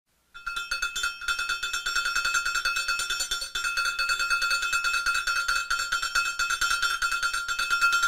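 Medium handmade sheep bell, a small metal cowbell-style bell, shaken rapidly by hand: fast continuous clanking over one steady ringing pitch, starting about half a second in.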